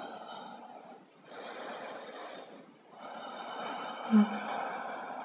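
A woman's slow, audible breathing during a held yoga pose: long breaths in and out, three in all. A short low voice sound comes about four seconds in.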